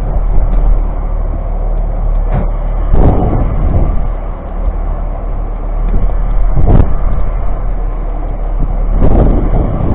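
Wind buffeting the camera's microphone on an open boat at sea: a steady low rumble with a few louder gusts or thumps, around two and a half, three, seven and nine seconds in.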